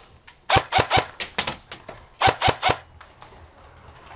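Ares Amoeba AM-013 airsoft electric gun firing semi-automatic shots in two quick strings, about six short shots and then three.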